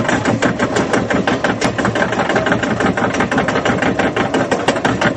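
Roller coaster train climbing a chain lift hill: rapid, steady clattering of the lift chain and anti-rollback ratchet over the running lift mechanism.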